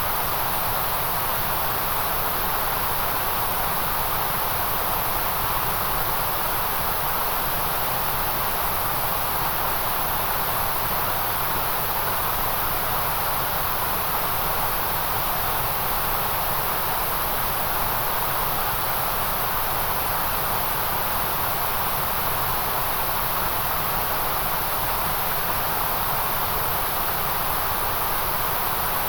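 Steady white noise: an even, unchanging hiss, strongest in the middle and very high range.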